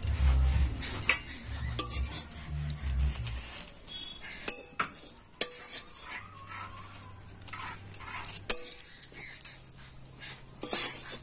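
Metal spatula clinking and scraping against a steel kadai (wok) as a thin rice-flour crepe is folded over its coconut filling. There are a handful of irregular sharp clinks, with low handling noise in the first few seconds.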